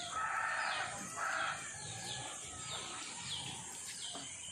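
A rooster crowing in the first second and a half, over a bird's repeated short falling chirps, about two a second.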